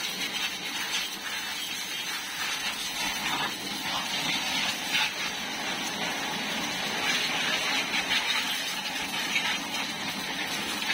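Pressure washer running steadily, its wand's water jet spraying against a motorcycle's front wheel and the concrete.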